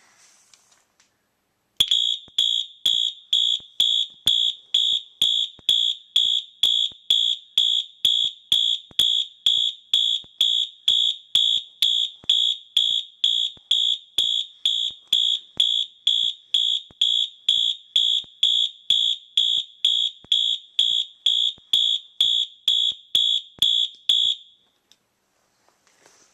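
Wheelock MT multi-tone electronic fire alarm horn sounding a pulsed high-pitched tone, about two even beeps a second. It starts about two seconds in and cuts off shortly before the end.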